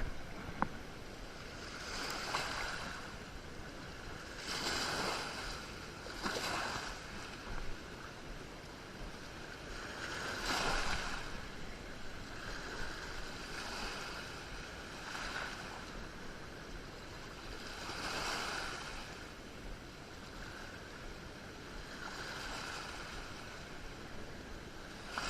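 Waves washing onto the shore in a series of swells, one every two to four seconds, over a steady hiss of surf.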